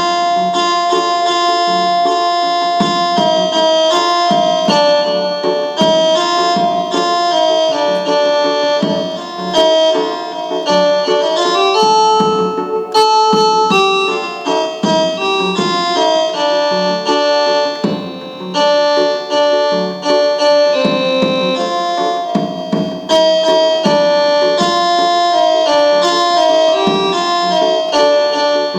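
Arabic arranger keyboard (org) playing a melody on its rababa and zamr (reed pipe) voices over a repeating low accompaniment, with a slide in pitch about halfway through.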